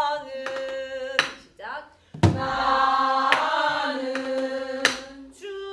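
Female voices singing a Korean Namdo minyo folksong phrase in long held, sliding notes, with a few sharp strikes on a buk barrel drum about a second apart.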